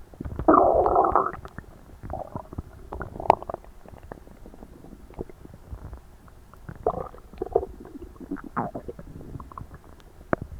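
Loud stomach and bowel gurgles of a person digesting a very large meal: one strong gurgle about half a second in, then scattered smaller gurgles and pops, with another run of gurgles around seven to nine seconds in.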